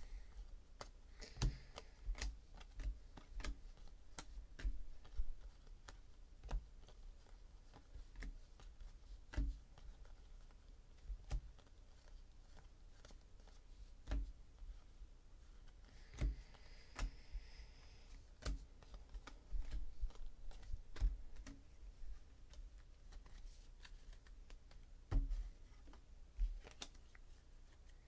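Paper trading cards being flipped through one by one and dealt onto a stack, making irregular light clicks and snaps with a brief soft sliding hiss partway through.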